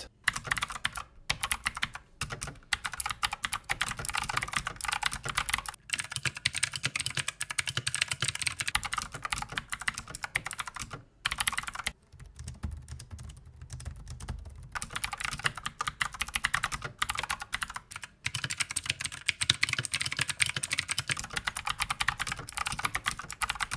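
Fast, continuous typing on computer keyboards in a sound test: the Redragon K557 Kala mechanical keyboard's keys clacking, compared with at least one other keyboard. For a few seconds about halfway through, the keystrokes turn quieter and sparser.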